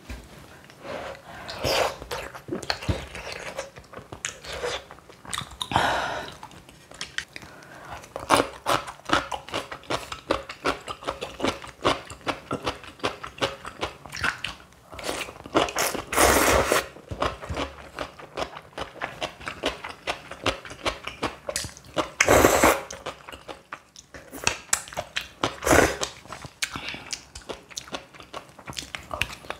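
Close-miked eating of crisp stuffed cucumber kimchi and ramyeon: crunchy bites and chewing in quick succession, with a few louder, longer bursts about halfway through and again later on.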